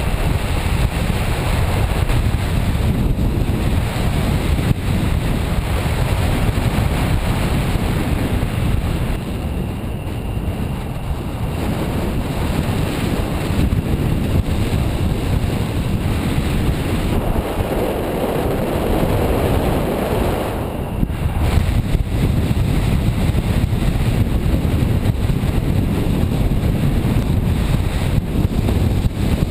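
Steady wind buffeting the microphone of a camera flying under a paraglider, a dense rushing noise heaviest in the low end that swells and eases slowly.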